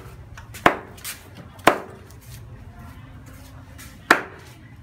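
A large knife chopping through a water snake onto a round wooden chopping board: three sharp chops, the third after a pause of about two seconds.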